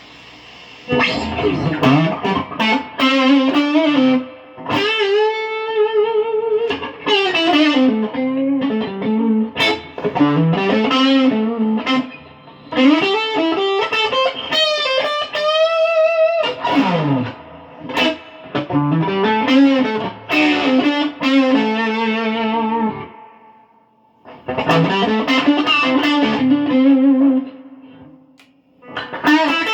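Electric guitar played through a tube amplifier fitted with new power tubes, as a sound check: single-note lead phrases with string bends and vibrato, starting about a second in and broken by a few short pauses.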